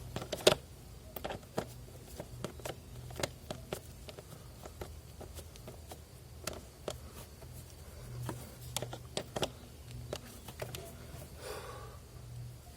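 Scattered light clicks and knocks of hand tools and metal parts being handled during car repair work, irregular, with the sharpest knock about half a second in, over a faint steady low hum.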